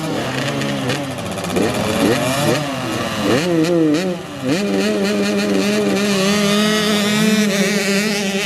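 Small dirt bike engines revving up and dropping back again and again through the first half. From about halfway through, an engine holds a steady pitch.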